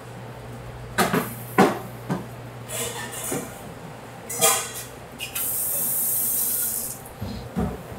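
Kitchen prep clatter: a handful of knocks and metallic clinks, one of them ringing, then a steady high hiss lasting about a second and a half, and two dull thumps near the end, over a constant low equipment hum.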